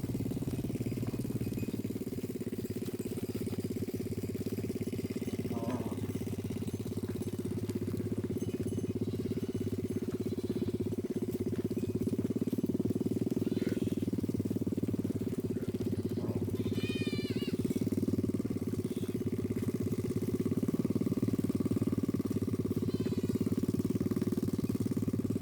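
A small engine running steadily with an even hum, like a motorbike idling. Short warbling high chirps come through a few times, strongest about two-thirds of the way in.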